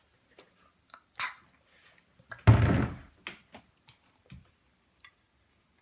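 Small mouth clicks and chewing noises while food is eaten, with one loud, short burst of noise lasting about half a second, about two and a half seconds in.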